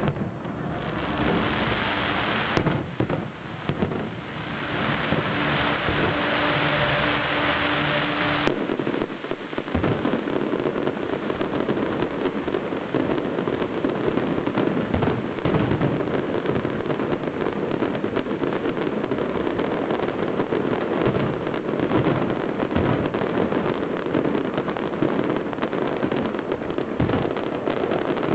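Fireworks display going off. For the first eight seconds or so there is a loud, steady hiss with a few faint held tones, then it changes abruptly to a dense, continuous barrage of bangs and crackling.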